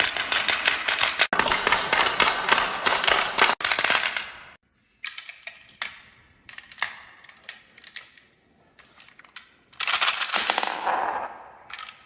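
Marbles clattering along a toy marble run. A dense rattle of rapid clicks lasts about four seconds, then comes a scatter of single clicks and knocks, and about ten seconds in a second burst of rattling fades away.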